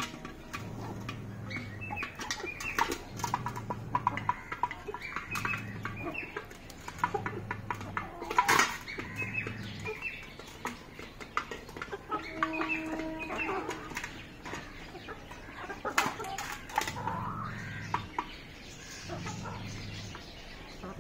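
Chickens clucking, with short sharp sounds scattered through, over a low rumble that comes in pulses about a second long and drops out for several seconds in the middle.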